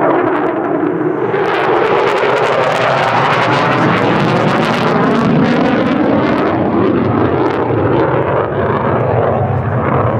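F-35A Lightning II's Pratt & Whitney F135 jet engine running loud as the jet flies by. The noise turns harsh and crackling from about a second and a half in, then eases back to a smoother roar for the last few seconds.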